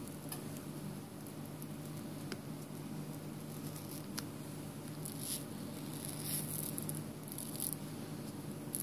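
Faint scratching and occasional ticks of a plastic opening pick sliding along the edge of a Samsung Galaxy S6 Edge's glued glass back cover, separating the adhesive, over a steady low hum.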